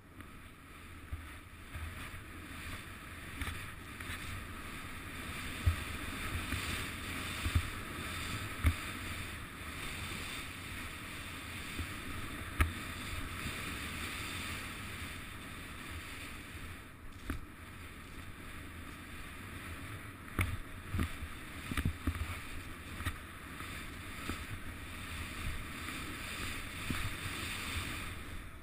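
Skis hissing through deep powder snow while wind rushes over a helmet camera's microphone, with scattered sharp knocks as the skier turns.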